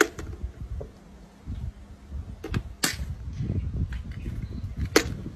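Four sharp clicks or knocks, two of them close together near the middle, over a low uneven rumble.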